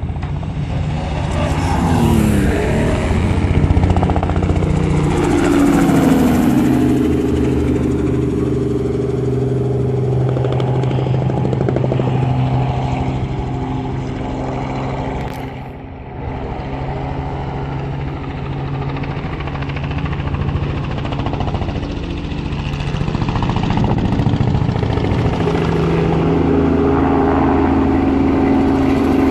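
Robinson R44 helicopter flying low past with a steady drone of rotor and engine. About two seconds in, and again about five seconds in, engine notes sweep down in pitch as something passes at speed.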